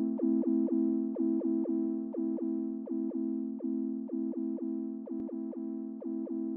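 Background music: a synthesized keyboard playing a steady run of quick repeated notes, about four a second, over a held chord.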